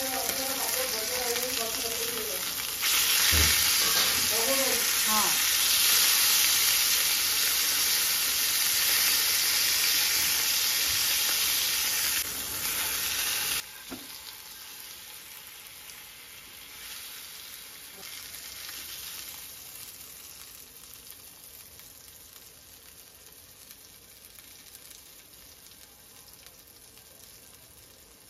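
Fish steaks coated in green masala sizzling in hot oil in a nonstick frying pan, with a spoon and a wooden spatula working in the pan. The sizzle is loud for the first half, then drops abruptly about 14 seconds in to a much quieter sizzle that slowly fades.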